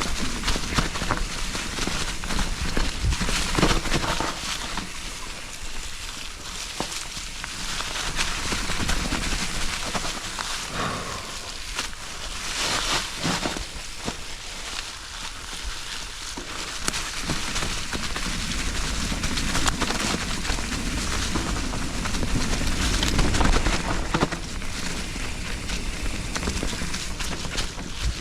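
Nukeproof Giga 297 full-suspension mountain bike riding a dirt trail: tyres crackling over gravel and roots, with frequent knocks and rattles from the bike, over a steady wind rumble on the chin-mounted camera.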